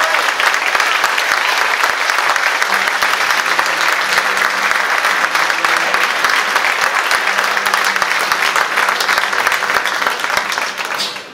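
Guests applauding steadily after the kiss, the clapping dying away near the end.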